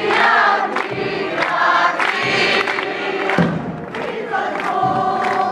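A crowd of many voices singing loudly together in phrases as the Saint Joseph statue is carried out.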